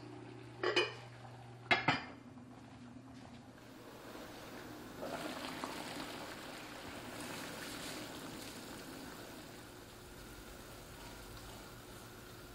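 Dishes clinking twice, then a soft steady hiss of liquid for several seconds.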